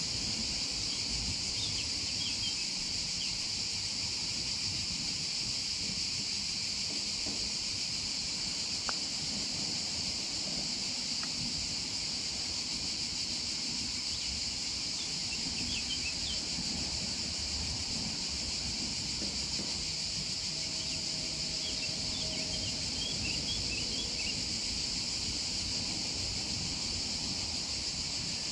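Steady high-pitched buzzing of a cicada chorus, with three short clusters of small bird chirps and a low wind rumble on the microphone underneath.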